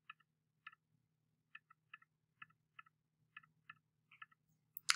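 Soft, irregular keystrokes on a computer keyboard as words are typed into form fields, a few taps a second, with one sharper click near the end.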